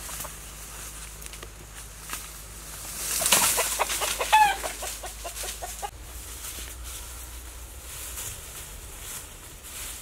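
A rooster clucking rapidly in a loud burst, with a sharper squawk in the middle, from about three seconds in until it cuts off abruptly near six seconds.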